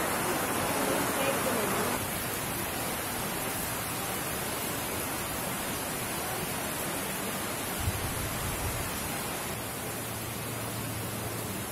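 Heavy rain falling steadily, an even dense hiss.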